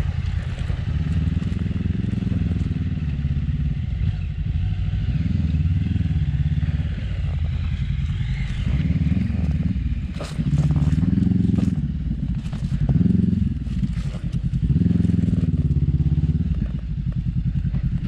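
Motorcycle engine ridden slowly at low revs on a rough dirt trail, with the throttle opened and closed again several times in the second half. A few sharp knocks come about ten seconds in.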